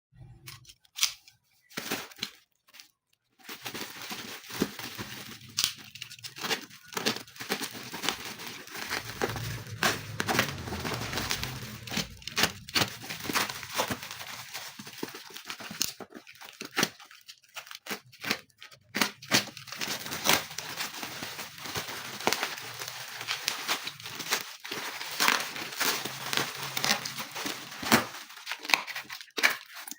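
Parcel packaging being torn open and crumpled by hand: tearing and crinkling wrapping, with many short rustles and clicks.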